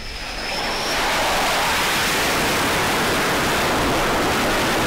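Fighter jet engines on an aircraft carrier's flight deck, a steady, loud jet rush that builds over the first second and then holds even.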